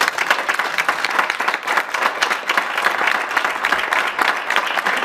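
Audience applauding, a crowd of hands clapping.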